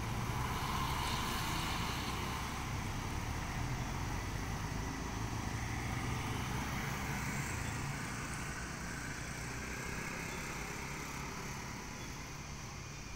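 Road traffic passing: cars and a motorcycle driving by, engines and tyre noise steady, easing off near the end.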